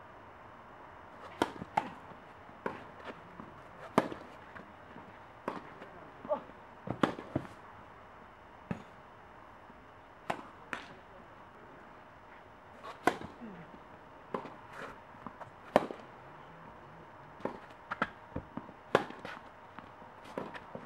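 Tennis rally: rackets striking the ball in sharp pops every second or so, some loud and close, others fainter from the far end of the court, with softer ball bounces between the hits.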